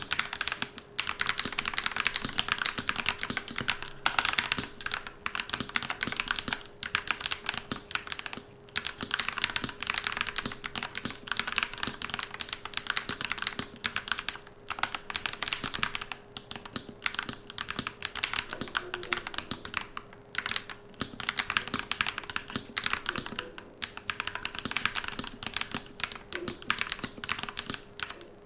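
Fast typing on a NuPhy wireless mechanical keyboard: a dense, continuous run of key clacks at about 80 words a minute, broken only by brief pauses.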